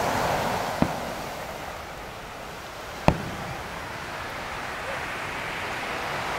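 Aerial firework shells bursting: two sharp bangs, about a second and three seconds in, the second the louder, over a steady wash of surf on the beach.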